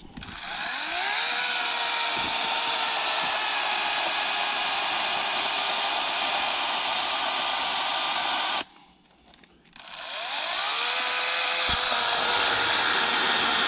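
Harbor Freight LYNXX 40V 14-inch cordless electric chainsaw, its motor whining up to speed and running steadily for about seven seconds. The motor then stops abruptly and, about a second later, winds up again and runs on.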